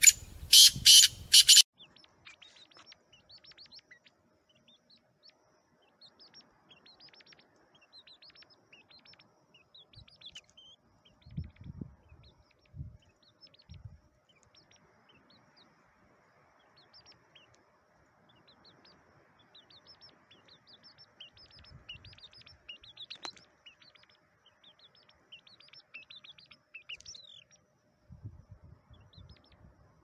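Four loud, harsh partridge calls in quick succession in the first second and a half, then faint, high, short bird chirps scattered through the rest, with a few soft low thumps.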